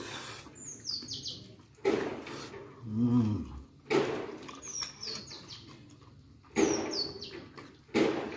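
Close-up eating noises: a handful of loud, short sucks and slurps as bits of chicken head are sucked from the fingers. Small birds chirp in the background, short falling chirps every second or two, and a brief falling hum comes about three seconds in.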